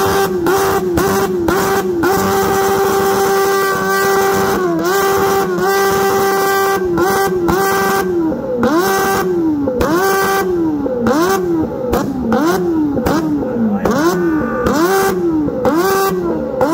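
A motorcycle engine revved hard and held at high revs. The revs drop and climb back again and again, about once a second in the second half.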